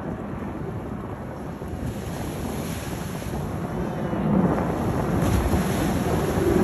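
A low, steady rushing roar of wind buffeting the microphone mixed with the distant jet noise of Blue Angels F/A-18 Super Hornets climbing in formation, growing louder over the last couple of seconds.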